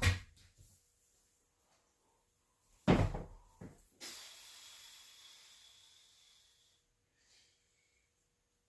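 Knocks and clunks of gym equipment: one sharp knock, then after a pause a double clunk, followed by a high hiss that fades out over about three seconds.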